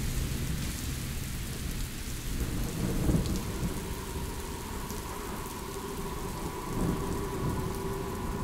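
Rain hissing steadily over a low rolling thunder rumble that swells about three seconds in and again near the end. Steady ringing tones fade in over the second half.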